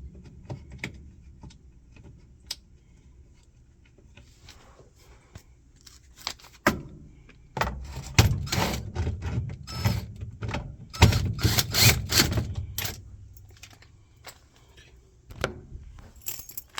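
Irregular metallic clattering, rattling and clicks of parts being handled, busiest and loudest from about eight to thirteen seconds in, with scattered clicks before and after.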